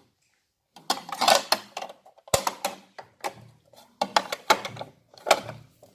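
Hard plastic and metal parts of a new sewing machine and its accessories being handled, giving a run of sharp knocks and clatters. The sharpest knock comes about two and a half seconds in.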